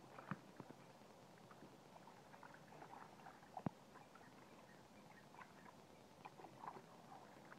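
Faint splashing and sloshing of water as a dog paws and paddles in a plastic kiddie pool, with one sharp tap a little past halfway.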